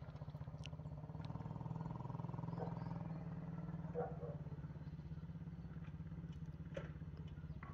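Small 125 cc four-stroke ATV engine running at a steady, even speed with no revving, fairly faint, with a few short faint chirps over it.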